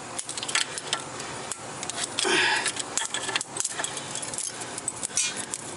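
Hand tools and loose metal pieces clinking and scraping against a car's wheel hub and steering knuckle, in quick irregular clicks, with a short scrape a little over two seconds in.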